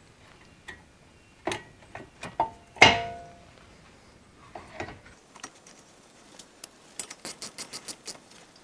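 Metal knocks and clanks as a brake caliper is fitted back over new brake pads, the loudest a single clank with a short metallic ring about three seconds in. Near the end comes a quick run of light, evenly spaced clicks.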